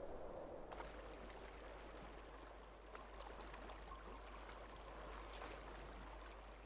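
Faint trickling, stream-like water with scattered light drips, starting abruptly about a second in.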